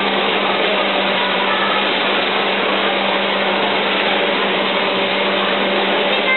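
Steady machine whir, like a motor or fan running, with a constant low hum underneath.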